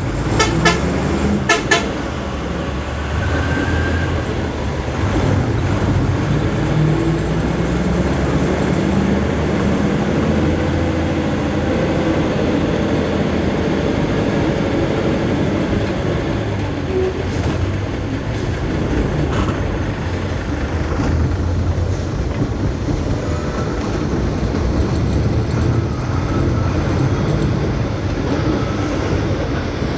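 Road traffic: heavy vehicle engines running steadily, with a few sharp clicks in the first couple of seconds and some short tones.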